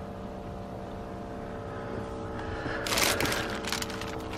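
Steady hum inside a pickup truck's cab, made of several fixed tones. About three seconds in there is a brief loud rustle, followed by a few light handling clicks.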